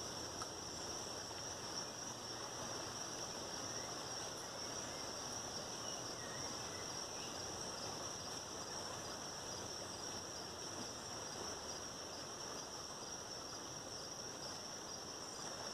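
A steady, high-pitched chorus of insects buzzing without a break, over the low even rushing of the river.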